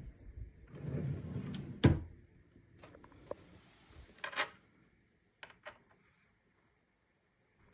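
A furniture drawer slides with a rumble and shuts with a sharp knock, followed by a few lighter scrapes and clicks.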